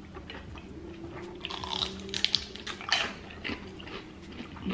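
Slurping pho rice noodles and chewing: wet mouth smacks and sucking, loudest about two to three seconds in.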